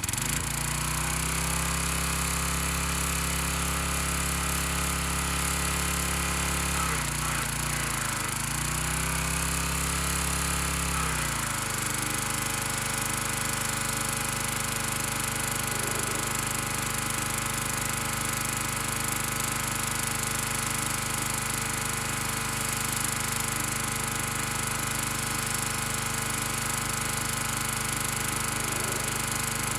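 Briggs & Stratton engine of a gas pressure washer running steadily. Its pitch sags twice around eight to eleven seconds in, then it settles into a different steady note with a steady hiss over it.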